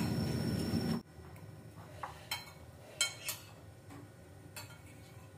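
Metal spoons clinking lightly against plates during a meal, a few scattered clinks. A steady background noise with a thin high whine cuts off suddenly about a second in.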